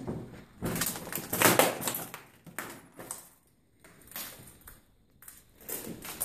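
Footsteps crunching and scraping over a debris-strewn floor, irregular and uneven, loudest about a second and a half in, with a couple of short lulls before the steps pick up again near the end.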